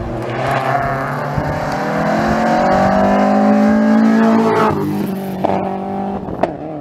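Hyundai Accent rally car accelerating hard up the road past the listener, its engine note rising in pitch for about four seconds. Then a brief break, as on a gear change or lift-off, and a lower, steadier engine note as it pulls away, with two sharp cracks near the end.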